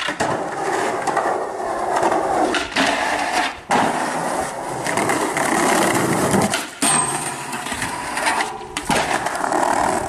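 Skateboard wheels rolling over concrete, a steady rough rumble that drops out briefly a few times.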